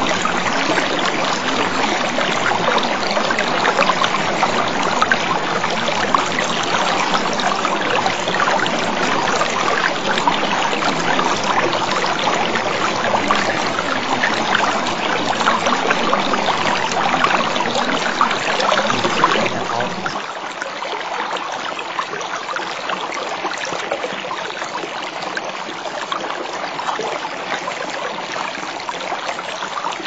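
Steady rushing sound of a flowing stream, a water-sound bed. About two-thirds of the way through it turns slightly quieter and thinner, with less low rumble.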